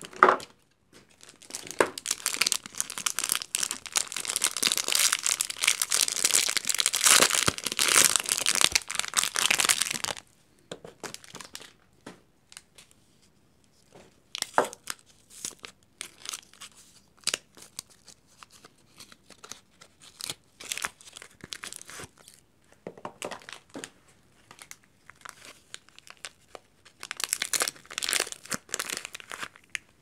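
Soap packaging torn open and crinkled by hand. A dense stretch of tearing and crinkling wrapper runs for about eight seconds, followed by scattered crinkles and clicks as a paper soap box is handled. A short burst of crinkling comes near the end.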